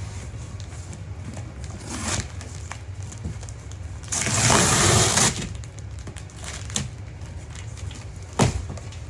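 A big cardboard box being handled: a burst of scraping and rustling lasting about a second, about four seconds in, and a single sharp knock near the end, over a steady low hum.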